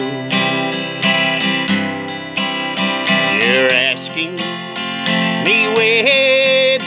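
Acoustic guitar strummed with a pick in a slow, even rhythm, accompanying a slow country ballad; a man's voice comes in with held, wavering notes in the second half.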